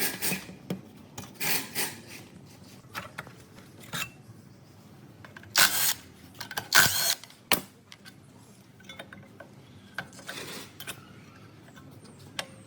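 Hand tools working on metal engine parts: irregular short bursts of ratcheting and clattering, the loudest about six to seven seconds in.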